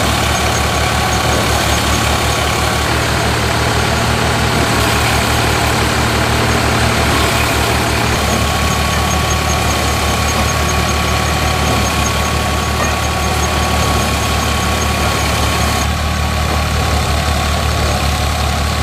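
Massey Ferguson tractor's diesel engine running steadily, driving a Dashmesh paddy thresher through the power take-off as it threshes rice straw, with a fast, even low throb from the engine and a steady high tone over the machine noise. The sound shifts slightly about eight seconds in and again near the end.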